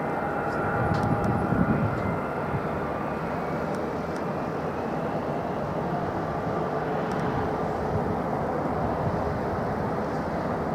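Jet airliner engines: a steady rush with faint whining tones that drift slowly lower in pitch.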